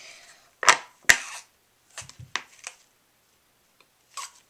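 Short, sharp puffs of breath blown into an empty plastic toothpaste tube to inflate it. There are two loud puffs about a second in, then several fainter ones.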